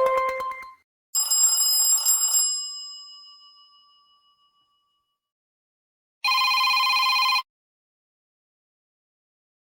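Android 11 Go Edition phone alert sounds played one after another. The end of one tone, then a bright bell-like chime about a second in that rings out for a few seconds, and about six seconds in a steady ring, like a telephone bell, lasting just over a second and stopping abruptly.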